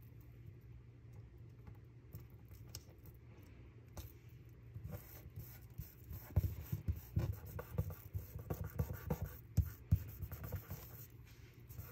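Fingertips rubbing and pressing paper stickers onto a planner page, an irregular run of scratchy rubs and soft taps on the paper and desk that starts about four seconds in.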